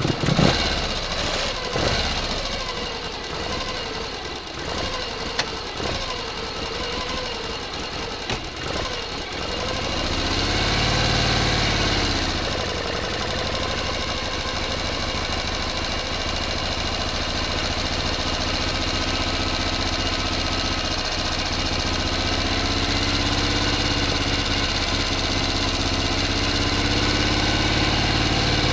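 A motor engine running, rough and uneven at first with irregular knocks. Around ten seconds in it revs up and drops back, then settles into a steady, even idle.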